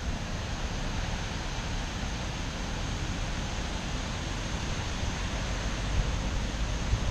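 Typhoon wind gusting: a steady hiss with irregular low rumbling buffets on the microphone, the gusts growing stronger near the end.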